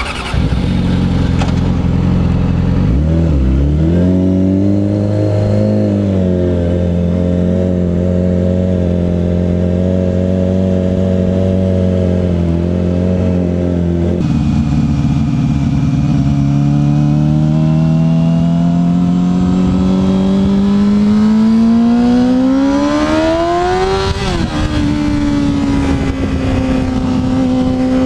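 2007 Yamaha R6's 600 cc inline-four engine under way as the bike pulls off. It runs steadily at first, then its pitch climbs through a long pull in one gear and drops at an upshift about four seconds before the end.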